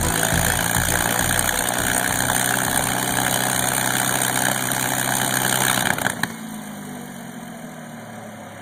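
P-51 Mustang's V-12 Merlin engine idling, heard through a cell phone microphone. About six seconds in the sound drops abruptly to a quieter, steady hum.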